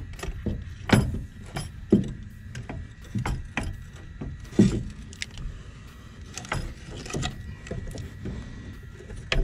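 Irregular knocks and clunks as a new front strut and coil spring assembly is worked up into the wheel well, metal knocking against the control arms and suspension parts.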